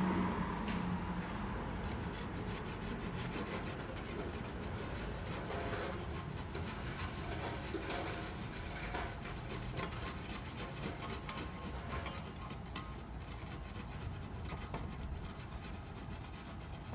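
A hand tool rubbing and scraping across chestnut wood in a steady run of small scratchy strokes, easing slightly toward the end.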